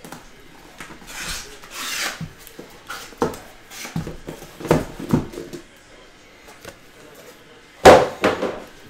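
Cardboard shipping box being handled and emptied: two rasping cardboard scrapes about a second in, a few light knocks, and a sharp thump near the end as the boxed contents are set down on the table.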